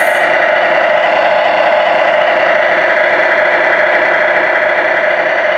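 Remote-control semi-truck's sound unit playing a simulated diesel engine at idle through its speaker: a steady, loud hum that does not change.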